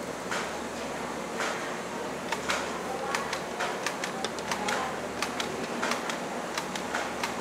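Irregular sharp clicking and clacking of workshop activity, sparse at first and then several clicks a second from about two seconds in, over a steady low machine hum.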